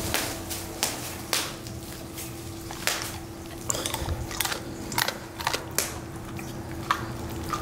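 Bubble wrap covering the floor crackling and popping underfoot in irregular sharp clicks as a Siberian husky steps about on it.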